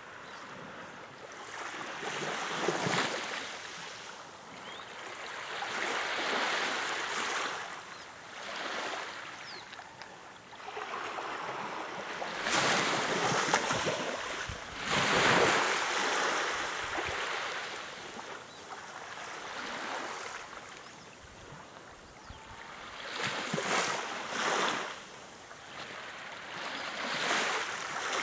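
Small sea waves lapping and washing around a wooden pier's pilings, swelling and fading every few seconds; the loudest washes come about halfway through.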